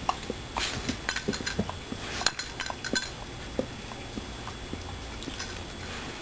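A dog's metal collar ID tags clinking in quick, irregular jingles as the dog shakes and tears at a stuffed toy. The jingling is busiest in the first three seconds and thins out after that.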